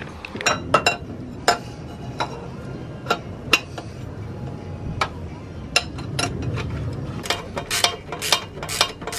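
Sharp metallic clicks and clinks, scattered at first and coming quicker near the end: a metal V-band clamp being handled and fitted by hand around a turbo wastegate flange.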